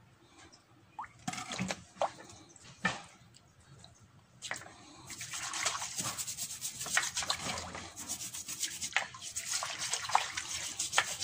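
A plastic-bristled brush scrubbing a pet turtle's shell in a basin of water: rapid rough brushing strokes mixed with sloshing water, starting about five seconds in and running on. Before that, a few separate splashes and knocks as the turtle is handled in the water.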